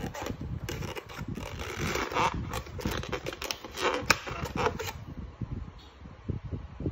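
Styrofoam clamshell takeout box being handled on a table: the foam scrapes and creaks with many sharp clicks, and the loudest snap comes about four seconds in as its front tab latch is unclipped and the lid opened.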